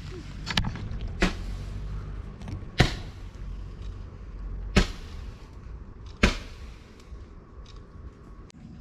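Fireworks going off with five sharp bangs spread over about six seconds, some trailing a short whoosh. A low rumble, typical of a passing car, lies underneath and fades near the end.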